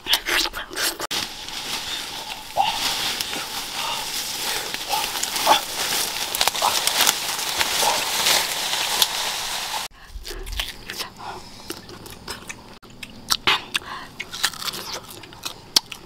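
Close-up sounds of someone biting into and chewing mango flesh: dense, loud, crackly mouth noises with many small clicks. About ten seconds in it drops abruptly to quieter, scattered clicks of chewing.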